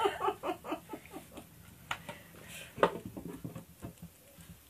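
Handling noise of a decorated craft box being turned and set down on a cutting mat, with a few light knocks, the sharpest about two seconds in and another near three seconds.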